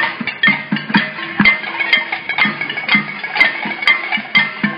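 Many cooking pots, pans and lids beaten by a marching crowd: a dense, uneven clatter of strikes several times a second, each one ringing briefly like metal.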